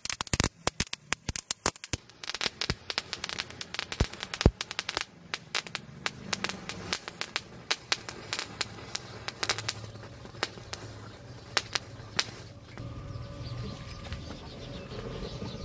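Diwali crackers and a matchstick chain burning: rapid sharp cracks and pops, dense at first and thinning out, over a steady hiss of crackers spraying sparks and flame.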